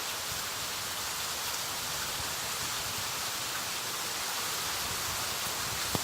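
Hurricane rain and wind making a steady, even hiss, with one sharp click near the end.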